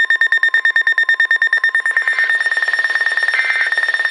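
Weather radio alert alarm going off for a severe thunderstorm warning: a rapid electronic beeping of several beeps a second. A brief second, higher tone joins in about 2 seconds in and again near 3.3 seconds.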